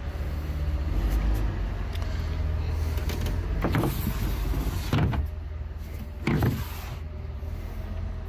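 Wind buffeting a handheld phone's microphone as a steady low rumble, with three short rubbing or bumping sounds from handling, about four, five and six and a half seconds in.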